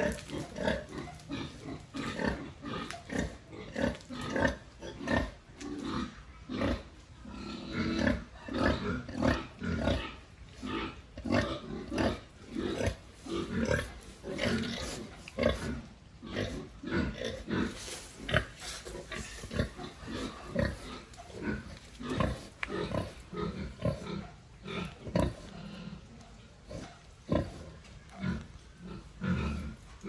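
Pig grunting steadily: a continuous run of short grunts, about two or three a second.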